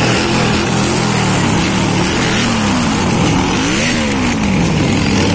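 Several Harley-Davidson V-twin motorcycles running past at low speed in a group, with one engine revving up and back down about four seconds in.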